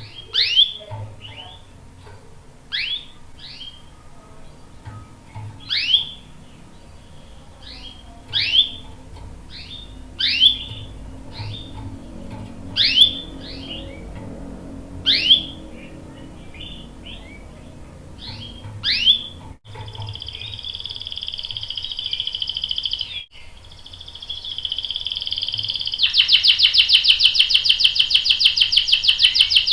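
Canary calling with sharp, sweeping 'cuit cuit' chirps repeated every second or two, then, about twenty seconds in, switching abruptly to a continuous high trilling song that becomes a loud, fast rolling trill near the end.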